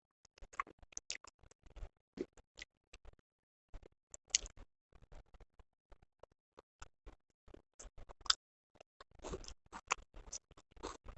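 Close-miked chewing and mouth sounds of a person eating: irregular short, soft clicks with brief silences between, thicker and louder near the end.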